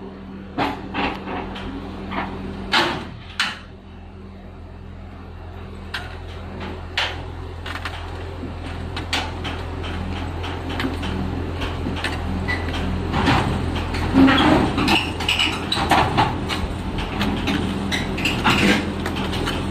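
Engine of a tracked XCMG drilling rig running with a steady low drone while its steel crawler tracks clank and knock as the machine climbs onto a lowboy trailer. The clanking gets louder and busier over the second half.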